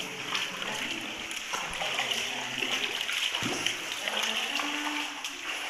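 Water splashing, with faint voices in the background.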